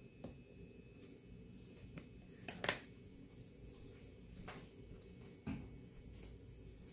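A plastic squeeze bottle being handled: about five short clicks and taps, the loudest about two and a half seconds in, over a low steady hum.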